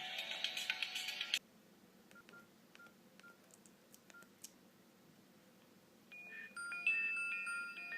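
Nokia N96 ringtones. One ringtone, an electronic tune with a rising tone and clicks, cuts off abruptly just over a second in. A few seconds of near silence with faint short beeps follow, then the next ringtone starts about six seconds in with bright, bell-like electronic notes.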